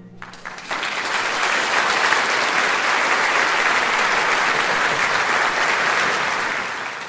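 Audience applause breaking out as a concert band's final held chord dies away in the first moment, the clapping holding steady and starting to fade near the end.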